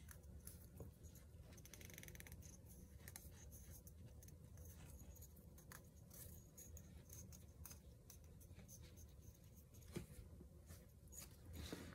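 Near silence with faint rustling and small taps of fingers handling a glass bottle covered in freshly glued rice paper, with one sharper tap about ten seconds in.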